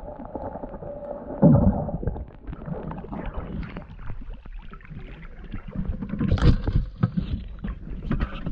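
Water sloshing and splashing around snorkelers in shallow sea, heard muffled with the microphone underwater for the first two seconds, with a thump at about a second and a half. After that it is heard in the open air, with a louder splash near the middle.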